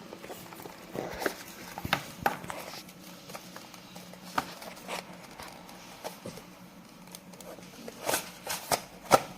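Hands handling the product and its packaging: scattered sharp clicks and taps, with a cluster of louder clicks near the end.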